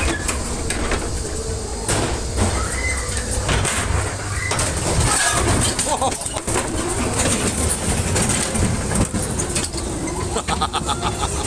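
Ghost train car, a 1995 Gilbert Chadwick Jr. build, rumbling and clattering along its track with repeated knocks as it rolls out into the open, with fairground voices in the background.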